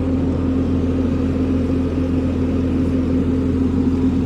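An engine running steadily at constant speed, a continuous even drone with a steady hum.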